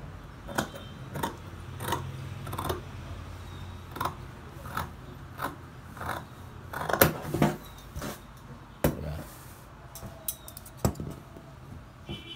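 Large tailor's shears cutting through cloth: a string of crisp snips, each closing of the blades a sharp click, coming roughly every half second to second.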